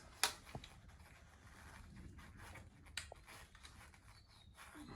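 Faint handling sounds of a bicycle tyre and inner tube being worked by hand at the rim, with two sharp clicks, one just after the start and one about three seconds in.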